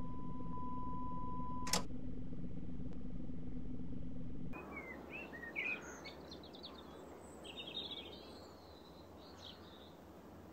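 Steady electrical hum of an old TV monitor with a high test-pattern tone, which stops with a sharp click just under two seconds in. After a few seconds this gives way to birds chirping over a faint hiss.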